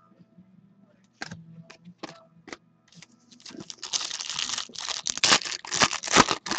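A foil trading-card pack being torn open and crinkled by hand. A few sharp clicks come first, then from about halfway a dense crackling tear of the foil wrapper that is loudest near the end.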